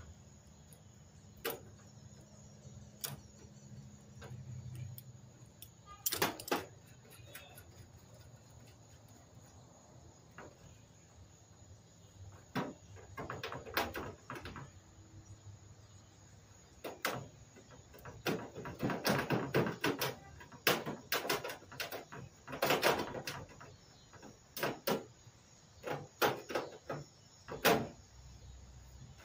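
Hand tools and metal parts clinking, knocking and rattling as a golf cart is taken apart by hand. The sharp sounds come singly at first, then in dense clusters with short pauses in the second half.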